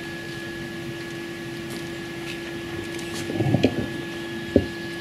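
Microphone on a stand being handled and adjusted over a steady hum. There is rustling with a few knocks about three and a half seconds in, then one sharp thump shortly before the end.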